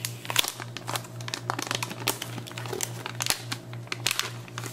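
Metallized anti-static bag crinkling and crackling irregularly as it is handled and opened and a 2.5-inch SSD is slid out of it.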